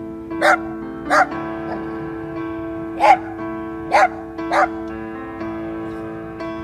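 Small black dog barking five times in short barks, in distress over a companion dog lying dead after being hit by a vehicle, trying to draw attention. Soft background music with sustained tones plays underneath.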